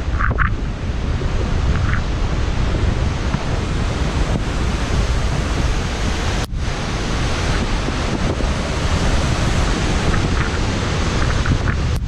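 Steady roar of a high waterfall's water cascading down over boulders, mixed with wind buffeting the microphone. The sound drops out for an instant about six and a half seconds in.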